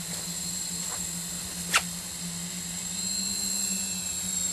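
Hexacopter's motors and propellers humming steadily in the air as it climbs on return-to-launch, with one sharp click a little under two seconds in.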